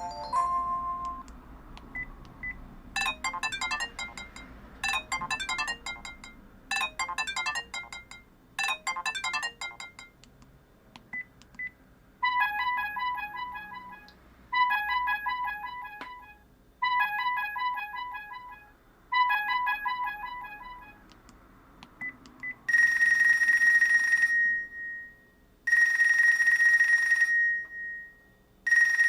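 Built-in ringtones of a Sharp-made Vodafone V601SH flip phone playing through its speaker. First a short electronic melody repeats four times, then a beeping pattern repeats four times, and near the end a buzzy electronic ring comes in bursts of about two seconds.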